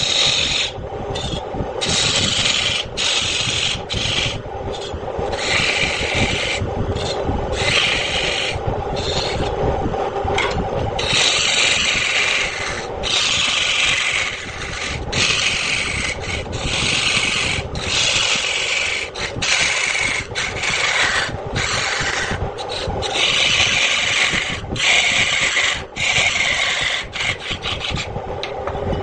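Wood lathe running with a steady hum while a turning tool scrapes and cuts spinning wood in repeated passes, the cutting noise breaking off briefly many times as the tool is lifted and set back.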